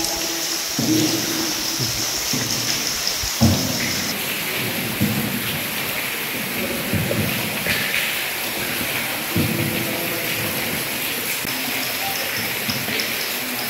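Steady, rain-like hiss of water echoing through a river cave, with scattered low muffled bumps and one sharper knock about three and a half seconds in.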